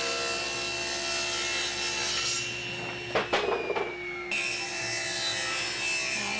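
Table saw running and cutting sheet plywood and walnut, a steady motor hum with the hiss of the blade in the wood. About three seconds in there is a short break with a few sharp wooden knocks.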